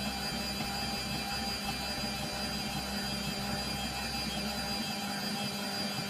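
Stand mixer's motor running steadily with an even hum while its dough hook kneads a sticky bread dough in a steel bowl.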